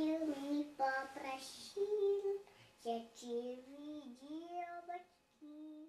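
A girl of nearly three singing a song in a high child's voice, held notes that slide up and down, broken into short phrases, with a brief pause near the end before a last short note.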